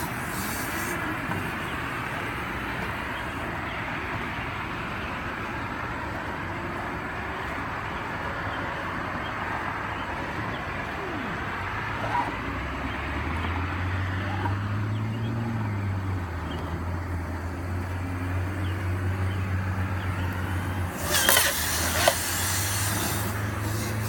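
Compressed air rushing through a dryer vent duct from an air-driven spinning-ball duct cleaning tool, blowing lint out of the vent, with a wavering whine over the rush. About halfway in a low steady hum joins, and a few sharp knocks come near the end.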